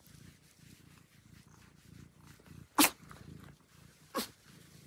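Domestic cat purring while it is petted, a low, steady pulsing rumble. Two short sharp sounds stand out, about three seconds in and again a second and a half later, the first the louder.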